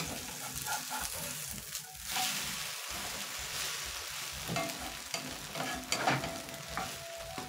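Egg-and-onion omelette sizzling in oil in a nonstick frying pan, with a plastic spatula scraping and tapping against the pan as the omelette is turned over. The sizzle grows louder about two seconds in, as the uncooked side meets the pan.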